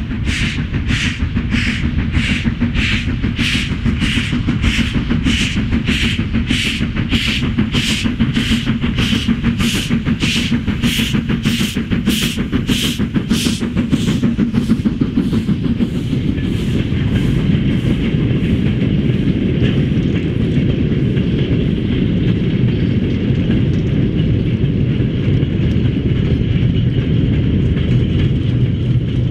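Preserved British steam locomotive working a goods train, its exhaust beating evenly at about two chuffs a second. About halfway through the chuffs fade away and a steady rumble of wagons rolling along the rails takes over.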